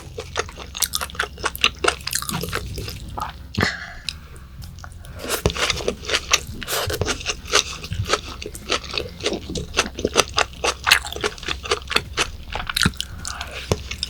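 Close-miked chewing of raw yellowtail sashimi: a dense run of quick mouth clicks and smacks, easing briefly about four seconds in.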